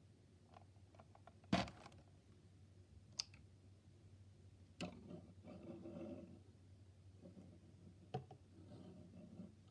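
Handling of a Lego mech and its box: four sharp clicks and knocks, the loudest about a second and a half in, with soft rustling of plastic pieces between them.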